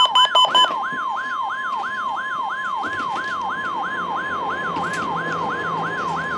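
NOAA Weather Radio 1050 Hz warning alarm tone, a steady high tone, sounding together with an alarm siren that sweeps down in pitch over and over, about three times a second. This is the weekly test of the warning alarm. A pulsing beep stops within the first second.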